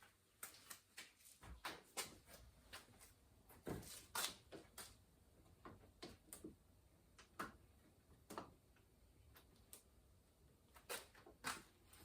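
Faint, irregular clicks and light knocks of parts being handled inside a car's rear door, loudest about four seconds in and again near the end.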